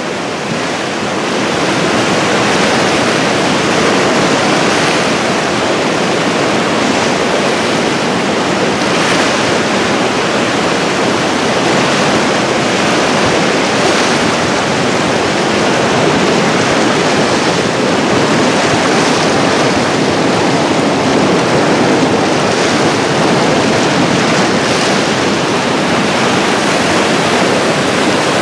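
A stream in flood, swollen by a winter thaw and heavy rain, rushing and churning as brown whitewater in standing waves: a loud, steady rush of water that fades in over the first two seconds.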